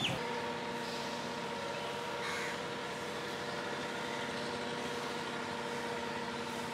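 A distant river passenger launch's horn sounds one long, steady blast starting just after the beginning, while crows caw over a steady background hiss.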